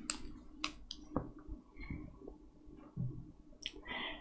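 Faint, irregular clicks of knitting needles tapping together as stitches are worked.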